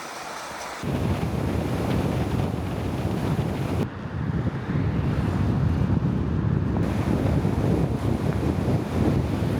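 Wind buffeting the microphone, a loud rough low rumble that sets in about a second in.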